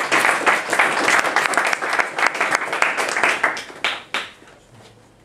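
Audience applauding: dense clapping that thins to a few last separate claps about four seconds in, then stops.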